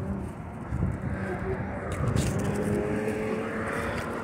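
A motor vehicle engine running with a steady low rumble.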